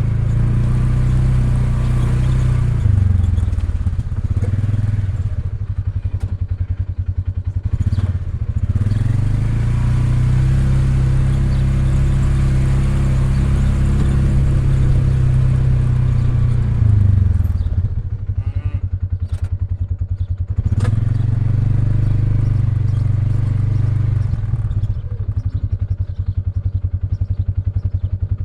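ATV engine running under changing throttle, its pitch rising and falling several times and dropping back to a lower, quieter running for a few seconds in the latter part.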